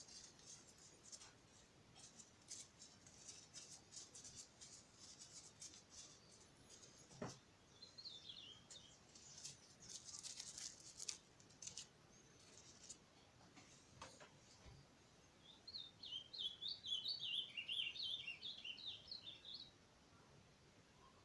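Faint small clicks and rustles of light handling through the first half, then a bird singing a fast warbling phrase of rapid chirps for a few seconds past the middle, the loudest sound here.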